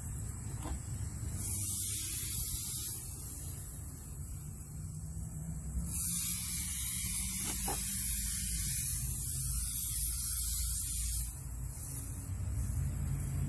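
Aerosol can spraying foam cleaner onto a vinyl bench seat, in two hisses: a short one about a second and a half in, then a longer one of about five seconds starting about six seconds in.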